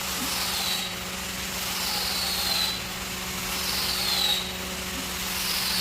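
Sandpaper rubbing on a wooden carved veranda bracket, a swishing stroke repeating about every second and a half over a steady low hum.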